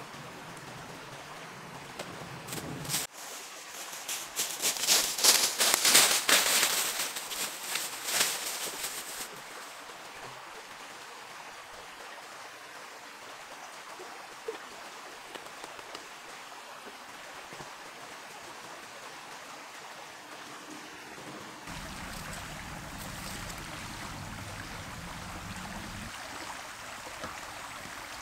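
Steady rushing outdoor noise, like running water. From about four to nine seconds in it is broken by a loud run of dense crackling and snapping.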